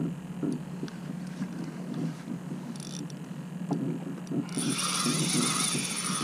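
A spinning fishing reel buzzing loudly for about two seconds near the end, its line under load from a hooked fish that is fighting. Under it runs a steady low noise of wind and water around the kayak, with small knocks.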